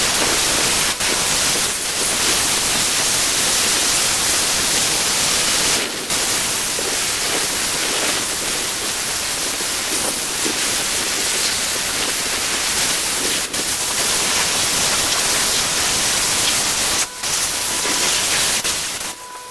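High-pressure car wash spray wand blasting water onto a car's body: a loud, steady hiss with a few brief breaks.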